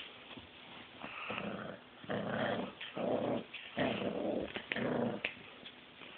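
Pit bull puppy growling in a string of short, rough bursts, four or five of them, while tugging and mouthing a blanket in play.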